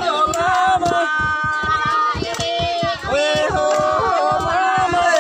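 A group of voices singing a chant in long held notes, over quick, uneven low thuds from long wooden pestles pounding roasted rice grain in a mortar to make emping.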